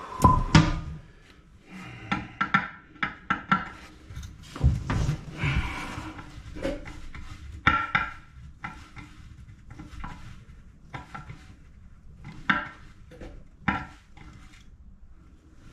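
Irregular clicks, knocks and scrapes of hand tools on metal bolts and nuts against a porcelain toilet tank as the bolts are tightened.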